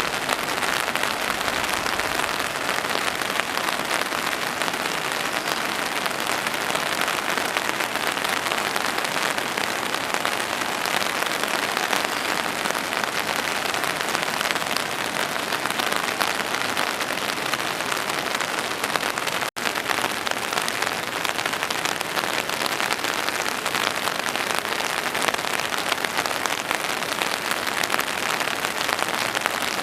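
Heavy rain falling steadily, a dense, even patter of drops on hard surfaces, with a split-second dropout about two-thirds of the way through.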